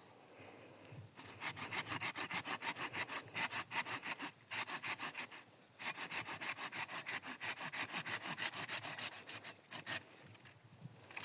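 Hand saw cutting through wood in quick, even back-and-forth strokes, about four or five a second. It starts about a second in, breaks off twice briefly near the middle, and stops shortly before the end.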